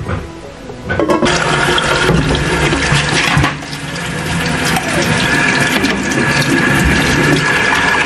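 Kitchen tap running into a sink as dishes are washed and rinsed, water splashing steadily; the flow starts about a second in.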